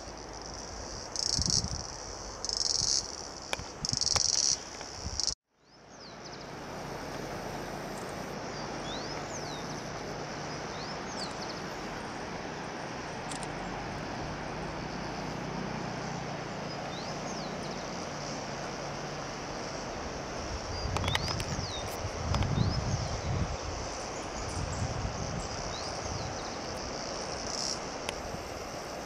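Insects calling outdoors: loud high buzzes that come in pulses, about one every second and a half. After a sudden cut, a steadier insect drone follows with faint short rising chirps. A low rumble comes and goes about three-quarters of the way through.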